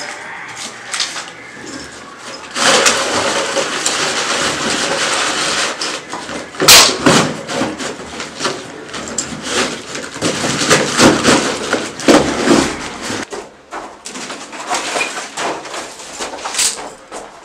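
Handling noise as cardboard boxes and a wooden board are moved on a gritty concrete floor: a few seconds of steady scraping and rustling, then irregular knocks and clatter.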